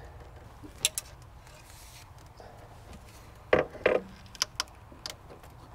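Light clicks and knocks of an intake manifold being handled and positioned by hand above the engine, with a cluster of louder taps about three and a half seconds in and a few scattered ticks after.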